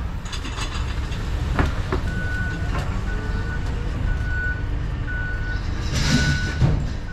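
Forklift backup alarm beeping about once a second, a single steady tone, over the low rumble of its engine while a pallet is loaded, with a few sharp knocks and a louder clatter near the end.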